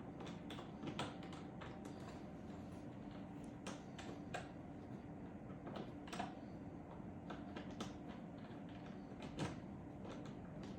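Scattered light clicks and knocks of small parts being handled as a pin is tried in freshly drilled holes in a trolley's plastic handle mount. A few louder knocks stand out, near 1, 4, 6 and 9.5 seconds in.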